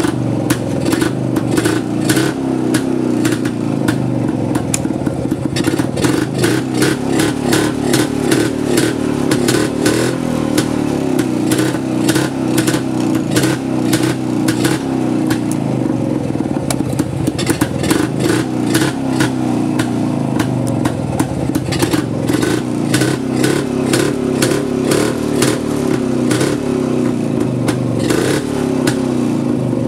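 Jawa 250 type 353 single-cylinder two-stroke motorcycle engine running steadily with a rapid crackle of exhaust pulses. It is running on a newly fitted digital CDI ignition in place of contact points.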